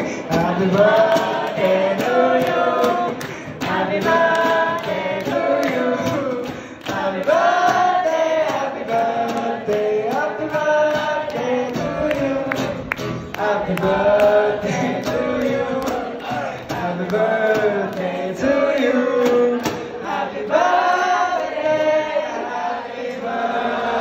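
Live acoustic song: a man singing into a microphone over a strummed acoustic guitar, the sung melody continuing throughout over an even strumming rhythm.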